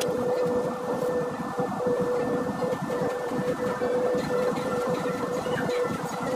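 Small electric polishing tool running steadily: a constant mid-pitched hum over a rough hiss.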